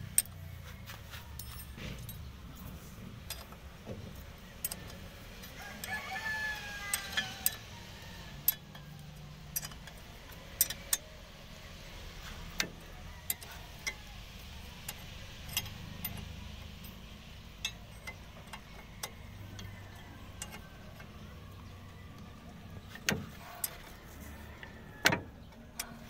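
Sharp metal clicks and taps of a wrench working a bolt on the compressor's steel lever linkage, scattered and irregular, over a low steady hum. A rooster crows in the background about six seconds in.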